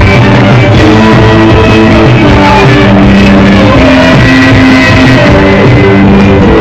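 Loud rock-style band music, with instruments and possibly faint singing playing steadily throughout.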